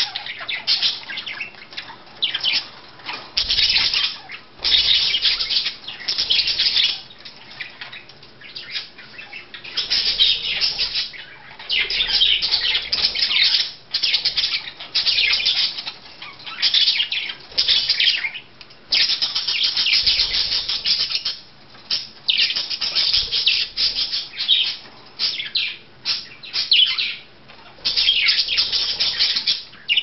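Budgerigars chattering and squawking in harsh bursts of a second or two, one after another, with wings flapping as the birds scuffle and chase each other.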